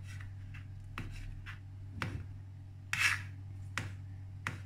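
Kitchen knife chopping black mushrooms on a plastic cutting board: short, sharp knife strikes at an irregular pace of about two to three a second, over a low steady hum.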